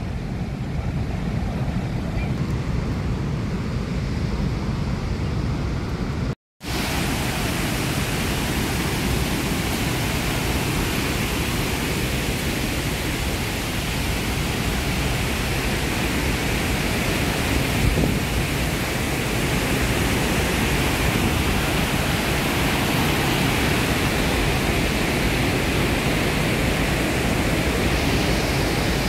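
The roar of Victoria Falls, a loud, steady rushing of falling water and spray. It cuts out for a moment about six seconds in, then comes back slightly brighter and fuller.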